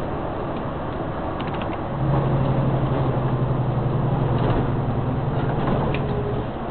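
Inside a moving vehicle's cabin: steady road and engine noise, with a low drone that comes in about two seconds in and drops away near the end, and a few light rattles and creaks from the cabin.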